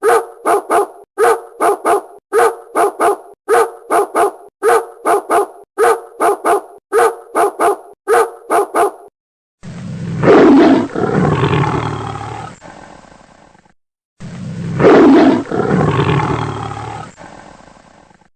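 A dog barking in quick sets of three, over and over, that cuts off abruptly about nine seconds in. Then two long, deep roars follow, each about four seconds.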